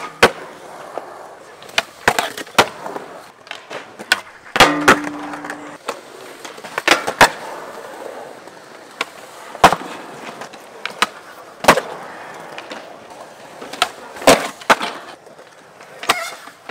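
Skateboards on concrete: wheels rolling, with many sharp clacks of tails popping and boards landing, and grinds on a metal rail and a concrete ledge. A brief steady low tone sounds about five seconds in.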